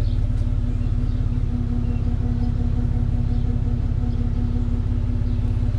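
Pickup truck engine idling steadily: a constant low rumble with an even hum over it.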